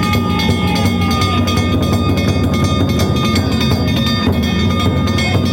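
Danjiri festival music mixed with a train running past at a railway level crossing, over a steady low rumble.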